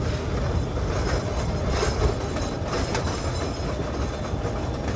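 Narrow-gauge train cars rolling along the track, heard from an open passenger car: a steady low rumble with a few short wheel-and-rail clatters about two and three seconds in.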